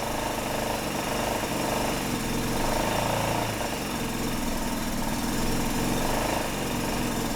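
GY6 150cc scooter engine, an air-cooled four-stroke single, running steadily with a fast even beat, its tone shifting about halfway through. It runs after a two-year sit while being fed fresh fuel.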